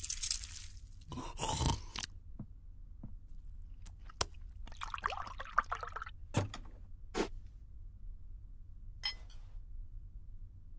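Kitchen sounds over a low steady hum: a brief high sizzle from an egg frying in a pan, a few sharp clicks and knocks, then milk pouring into a mug of coffee for about a second and a half, around the middle.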